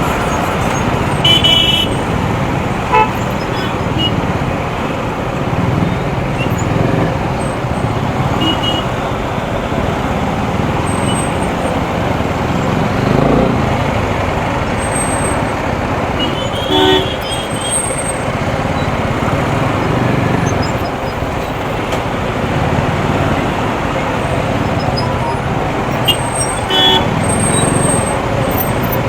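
Motorcycle riding through city traffic: steady wind and road noise with engine and traffic, and short vehicle horn toots a few times.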